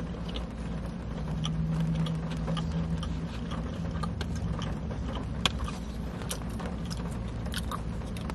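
Mukbang eating sounds: wet chewing and scattered sharp little clicks from handling fried nuggets and a plastic sauce cup, over a steady low rumble inside a car cabin.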